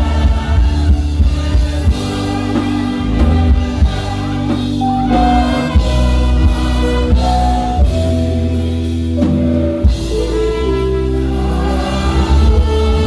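Music with singing over drums and a heavy bass, with long held notes.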